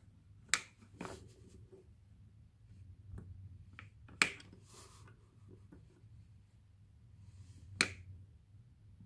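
Plastic snap rat trap being cocked by hand: four sharp clicks of plastic and wire as the spring-loaded kill bar is worked back, two faint ones in the first second and the two loudest about four seconds in and near the end.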